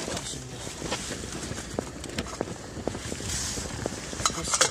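Close handling noise: rustling with scattered light clicks and knocks, a few sharper clicks near the end.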